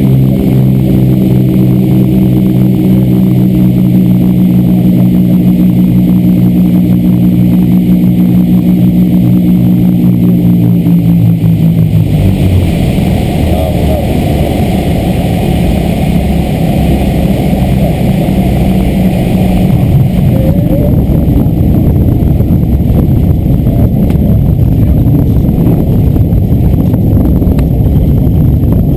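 Cessna 310R's twin six-cylinder engines heard from inside the cabin, droning steadily at low power on short final, the pitch easing slightly down. About twelve seconds in the wheels touch down and the even hum gives way to a rougher rumble of tyres and airframe rolling along the runway.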